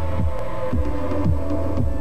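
Background music with a steady deep beat, a little under two beats a second, under held steady tones.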